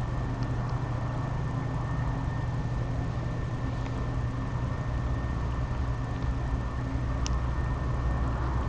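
Steady low hum and hiss of city background noise picked up by an outdoor webcam microphone, with a thin steady high tone running through it. A faint click sounds about seven seconds in.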